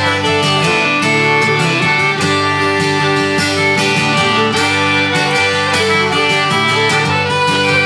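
Instrumental break in a traditional Irish song, played on fiddle, concertina and strummed acoustic guitar.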